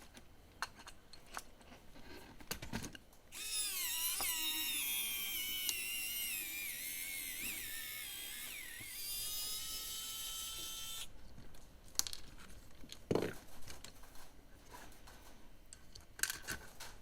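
A small electric motor whines at high pitch for about eight seconds, its pitch sliding down and wavering before holding steady, then cutting off suddenly. Light clicks come before it and a few knocks and taps after it, from small parts being handled.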